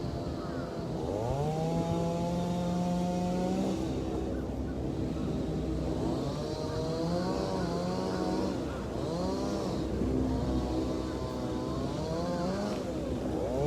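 Motor vehicle engines revving: the pitch rises, holds steady for a second or two, then falls, repeating several times with overlapping engines, over a steady low rumble.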